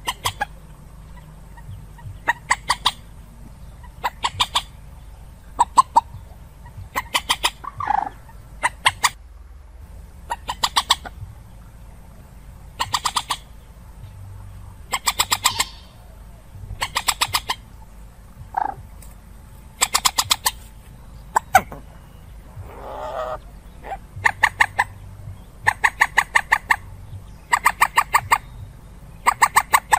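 Calls of the common moorhen (trích ré): bursts of rapid clicking notes, each about half a second to a second long, repeated every second or two, with a few lower single notes in between.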